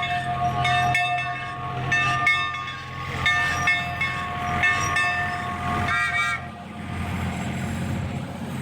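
A bell ringing about once a second over a steady held tone, then a low rumble from about six seconds in.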